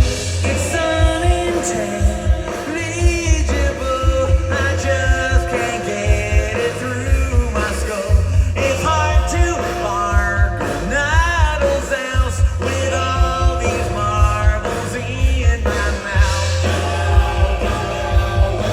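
Rock band playing live, a male lead singer over heavy bass and drums.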